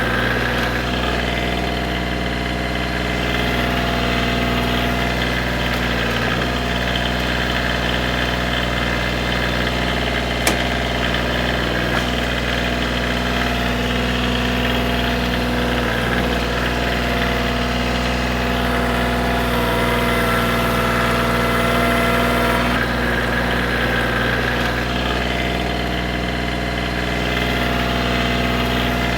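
Diesel engine of a Koiti DS 3510 compact tractor running at a steady speed, with one sharp click about a third of the way through.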